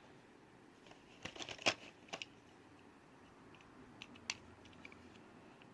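Light clicks and taps of small toy cars and their packaging being handled, a cluster about a second in and a couple more around four seconds in.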